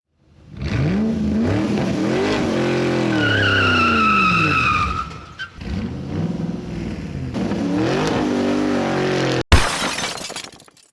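Race car engine revving up and down in repeated gliding sweeps, with a high tyre squeal about three to five seconds in. The engine sound stops abruptly and a short loud burst follows near the end.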